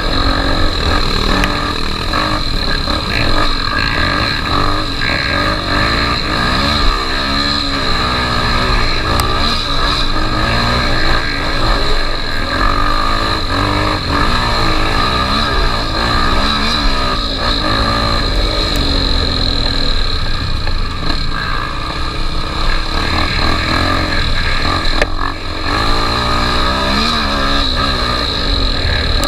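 Honda XR 250 Tornado's single-cylinder engine running under way, the revs rising and falling again and again as it is ridden.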